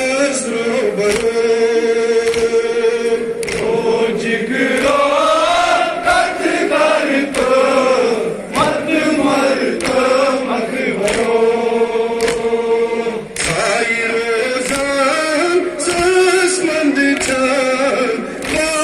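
A Kashmiri nowha, a Shia mourning lament for Muharram, chanted by a crowd of men in long held and slowly gliding notes. Sharp slaps of chest-beating (matam) cut through it about once a second.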